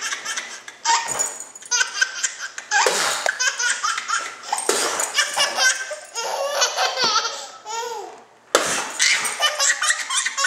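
A baby laughing hard in repeated bursts of belly laughter.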